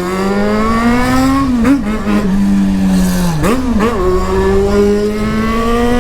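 Yamaha XJ6's 600 cc inline-four engine accelerating hard through the gears, running loud. The revs climb steadily and drop sharply twice, about one and a half and three and a half seconds in, as it shifts up, then climb again.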